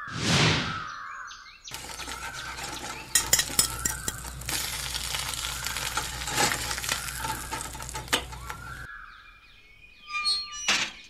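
Stall ambience with sharp clinks and knocks of bottles being handled over a low steady hum, starting and cutting off abruptly. A swooshing transition effect sweeps through near the start and again near the end.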